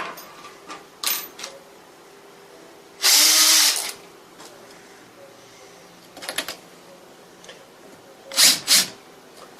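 A power drill running in a brief burst of about a second, about three seconds in, drilling a hole in the window frame. Small handling clicks come before it, and two short sharp bursts follow near the end.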